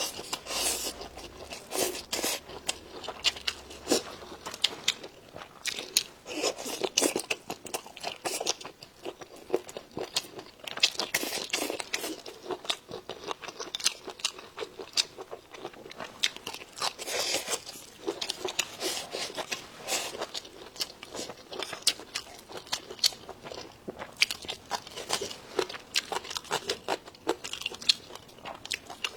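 A person eating close to the microphone: crunchy bites and chewing, a quick irregular run of sharp crunches.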